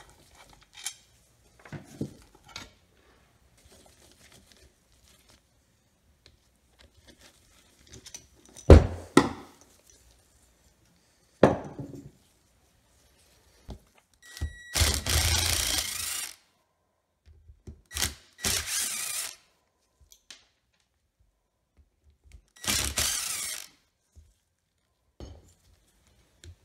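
Cordless power driver running in three short spurts, about a second each, backing screws out of a small two-stroke engine, with heavy knocks and clunks of metal engine parts being handled and set down on a wooden bench in between.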